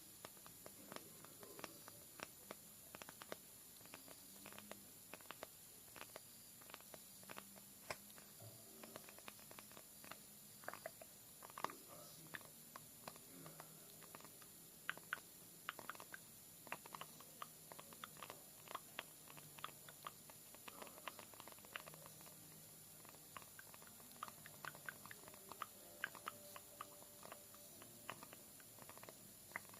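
Slow, soft ASMR tapping: short, faint clicks and taps at irregular spacing, a few a second.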